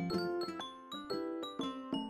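Background music: a melody of struck, ringing notes, a few per second, each sounding and then dying away.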